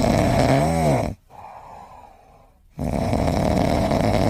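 Sleeping tabby cat snoring loudly: one long snore ends about a second in, a quieter breath follows, and a second long snore begins a little under three seconds in.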